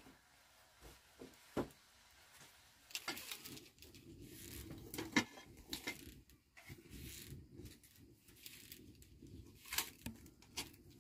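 Scattered light knocks and clicks of dry firewood sticks being handled and pushed into an open cooking fire, over the faint steady crackle and hiss of the fire.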